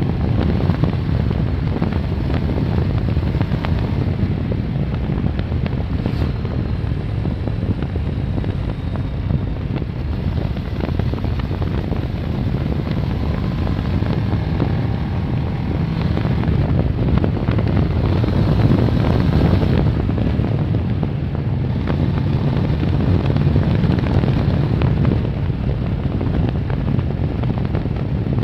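Kawasaki ER-6n's parallel-twin engine running steadily at road speed, mixed with wind rushing over the microphone.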